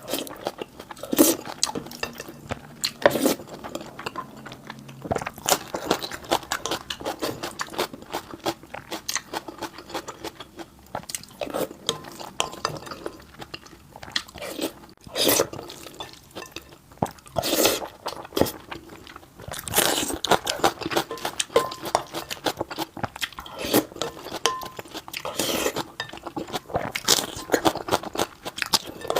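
Close-miked eating: a person chewing and crunching food, with irregular mouth clicks and bites and a few louder crunches.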